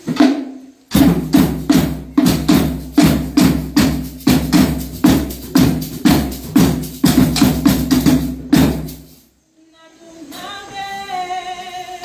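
Hand drum beaten in a steady rhythm, about three strokes a second, that stops suddenly about nine seconds in. After a short pause, a voice starts singing near the end.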